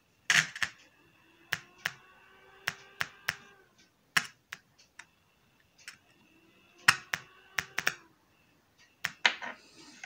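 Loudspeaker wired through a capacitor to a homemade switch-mode power supply's output, giving sharp irregular pops as the lead makes and breaks contact. Between the pops are faint whining tones: the supply's output noise made audible.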